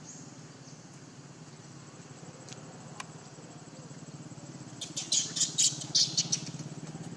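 A quick run of about a dozen short, high-pitched chirping calls about five seconds in, over a steady low hum.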